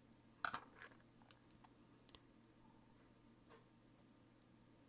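A few small, light clicks of fine tweezers and a paintbrush touching a tiny metal jig that holds model chain links, the sharpest about a second in, over near silence.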